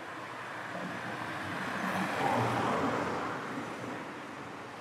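A car driving past, its tyre and engine noise swelling to a peak about halfway through and then fading away.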